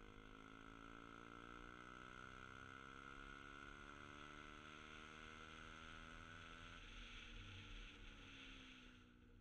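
Small scooter engine running at speed, faint; its pitch creeps slowly upward, then falls away about seven seconds in as the scooter slows.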